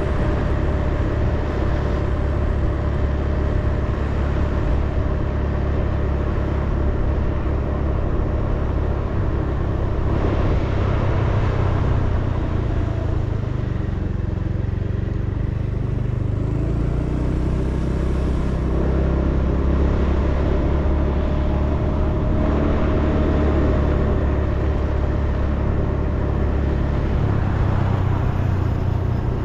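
Steady engine hum and road noise of a vehicle travelling along a paved road, heard from on board.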